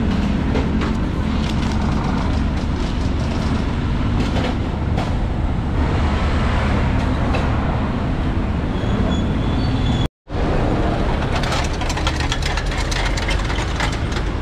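Steady drone of traffic on a busy city road, with engines running low under a wash of road noise. It cuts out briefly about ten seconds in. Near the end a rapid run of sharp clicks and rattles sits over the traffic.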